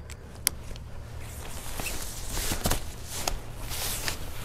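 Nylon rain fly rustling as it is pulled over a truck bed tent, with a few short sharp clicks from its plastic clips and handling.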